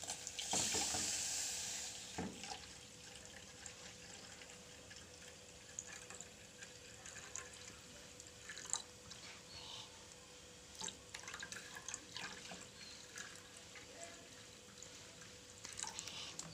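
Water pouring from a plastic bottle into an aluminium pot of grated turmeric, strongest in the first two seconds, then a quieter steady trickle with scattered drips and light knocks.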